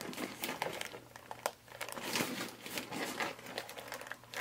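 Crinkling and rustling of a clear plastic protective wrap and coated-canvas handbags being handled and moved about, with scattered small clicks and taps.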